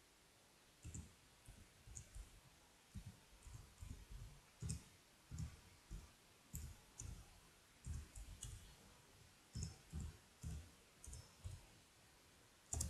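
Faint computer keyboard typing: irregular key clicks, about two a second, pausing briefly before one last click near the end.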